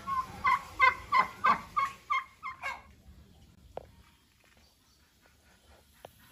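Caged domestic fowl calling: a quick series of about eight calls, about three a second, that fade out about three seconds in. After that only a few faint clicks.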